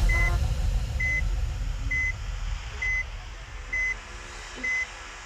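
The last notes of a bus's telolet musical horn die away at the start, and the low rumble of a large vehicle fades as it moves off. Through it a short, high electronic beep repeats about once a second.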